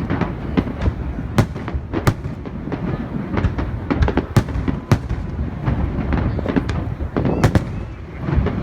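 Fireworks display: shells bursting in quick, irregular succession, several sharp bangs a second over a continuous low rumble of overlapping explosions.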